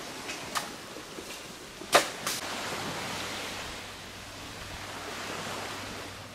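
A few sharp knocks, the loudest two close together about two seconds in, then a steady rushing hiss that swells and fades.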